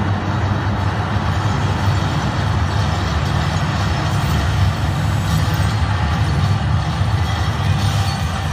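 Deep, steady rumbling sound effect played through the loudspeakers of an immersive projection-mapping show, accompanying projected stone ruins breaking apart into blocks.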